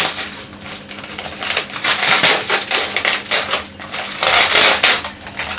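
Plastic packaging wrapping crinkling and rustling as items are unwrapped by hand, in irregular bursts, loudest about two seconds in and again just past four seconds.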